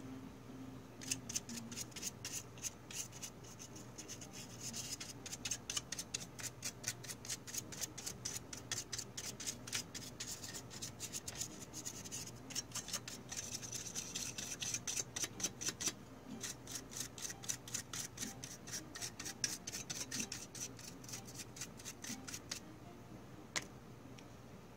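Samsung BD-HM51 Blu-ray player's optical drive, cover off, ticking rapidly and evenly for about twenty seconds as it works on a disc, then stopping, with one last tick near the end.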